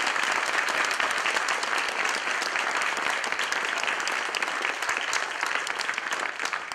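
Audience applauding: dense, steady clapping from many hands that dies away near the end.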